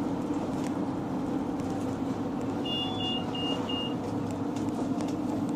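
Mercedes Sprinter minibus under way, heard from inside: steady engine and road noise with a low hum. Near the middle, four short high beeps sound in quick succession.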